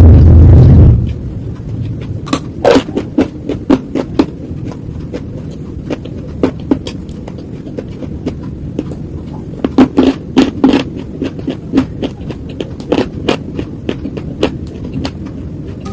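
Slate crunching: many sharp, irregular crunches and snaps, several a second, over a steady low background hum. A loud low rumble fills the first second, then cuts off.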